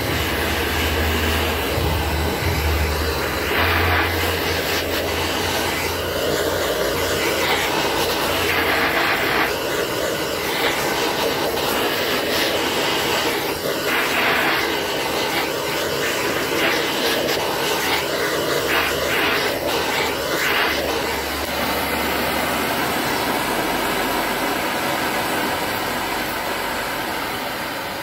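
LPG hand torch burning with a steady roar as it heats the aluminium motorcycle gearbox casing around a needle bearing bore, the stage before the bearing is fitted. The flame noise wavers in strength, then evens out near the end.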